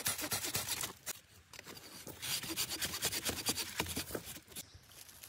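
Hand pruning saw cutting through a wooden branch with quick rasping back-and-forth strokes. It comes in two runs with a pause of about a second between them, and the sawing stops shortly before the end.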